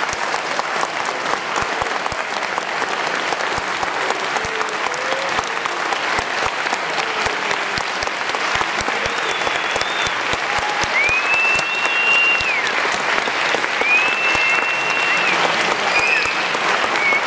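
Audience applauding in a steady dense clatter after a school band performance, growing slightly louder in the second half. Two long high whistles rise above the clapping near the end.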